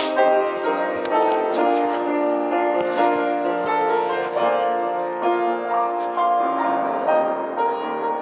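Slow piano music playing held, overlapping chords.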